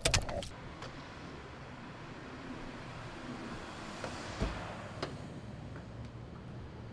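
Street traffic noise with a vehicle passing, then the doors of a parked Chevrolet HHR being opened as its occupants get out: a low thump about four and a half seconds in and a sharp click shortly after.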